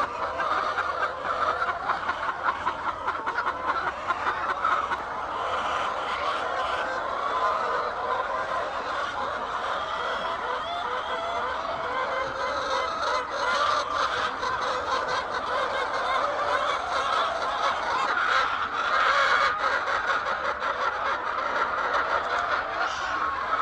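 A flock of chickens clucking and calling over one another in a steady, continuous chorus.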